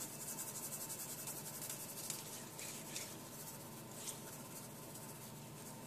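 Faint scratchy rubbing of a hand working sea salt into the oiled, scored skin of a pork roast, with a few soft strokes.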